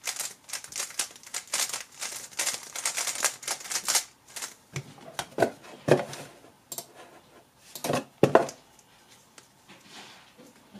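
GAN 11 M Duo 3x3 speed cube being turned rapidly, a fast run of plastic clicks for about four seconds. Then several knocks as the cube and a cover box are handled on the desk mat, the loudest near the middle and about eight seconds in.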